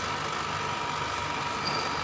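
Commutator slotting (undercutting) machine running: a steady high whine over a low hum.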